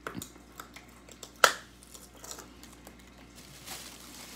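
Handling of a small plastic candy toy: scattered light plastic clicks and one sharp knock about a second and a half in, then faint rustling near the end.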